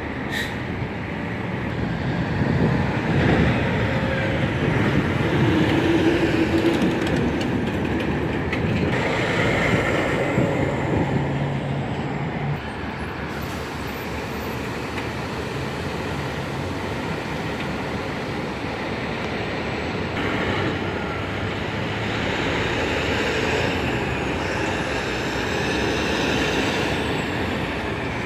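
Road traffic on a busy street: dump trucks and cars driving past, with a continuous rumble of engines and tyres. It swells louder a few seconds in and again near the end as heavy vehicles go by.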